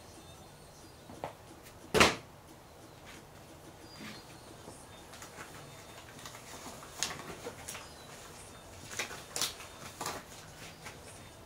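A hard plastic tool case is set down on a concrete floor with one sharp knock about two seconds in, followed by scattered lighter clicks and knocks of tools and the case being handled.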